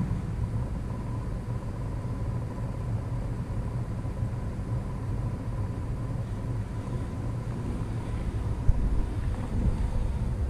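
A steady low rumble with a faint, even hum over it, and one brief thump about nine seconds in.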